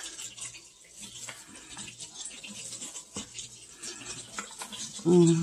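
Chef's knife dicing partly frozen chicken breast on a wooden cutting board: irregular knocks of the blade against the board over a steady hiss of butter sizzling in a skillet. About five seconds in, a loud pitched hum begins.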